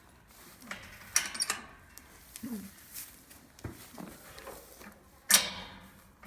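Goats moving about in a barn pen: rustling and scattered knocks, the sharpest about a second in and about five seconds in.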